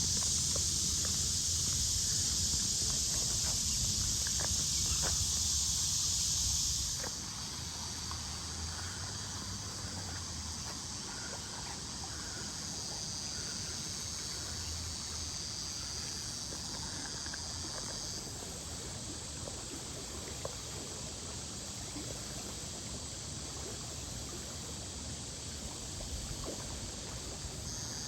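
Cicada chorus, a steady high hiss that drops off abruptly about seven seconds in and carries on more softly, easing again partway through and swelling near the end. Under it runs a low rumble, with a few faint chirps and ticks.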